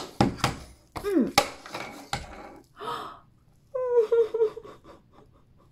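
Large plastic toy blocks knock and clatter as a block tower is pushed over, then a woman's voice makes upset gasping and whimpering sounds, with a wavering whine about four seconds in, voicing a hurt sock puppet.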